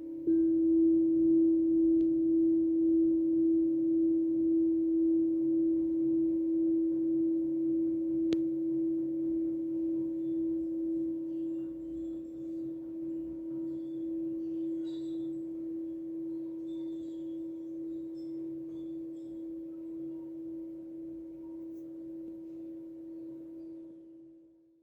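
A struck metal instrument rings one long, low, pure note that slowly dies away with a steady, gentle wobble in loudness. The note fades out near the end.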